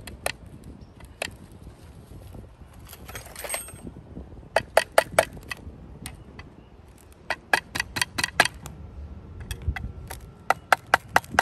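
Flat steel screwdriver tips scraping and clicking against a rusted metal retaining ring inside the fan's motor housing, prying at the ring that holds the felt pad. There is a brief scrape, then three quick runs of sharp taps, five or six in each run.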